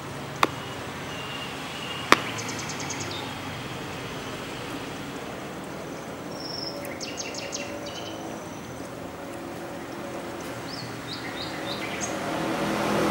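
Yard ambience with small birds chirping in short, fast trills and single chirps over a steady background hum. Two sharp clicks come about a second and a half apart in the first few seconds. Near the end a vehicle approaches and grows louder.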